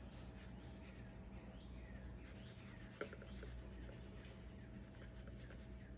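Faint shaking of a plastic spice shaker over a raw burger patty, with two light clicks, about a second in and about three seconds in.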